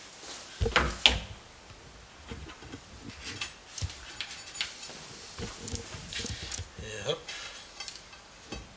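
Handling noise of wires and their connectors being pushed and pulled through a ceiling-fan extension rod: scattered clicks, knocks and rustling, with one loud knock about a second in.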